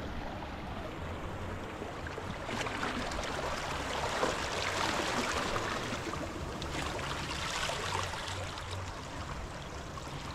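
Seawater washing and lapping against the rocks of a breakwater, a steady rushing that swells a little in the middle.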